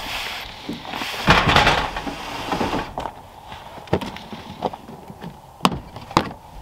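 Plastic storage bin being slid out with a scraping drag about a second in, then a few sharp knocks and clicks as it and its lid are handled.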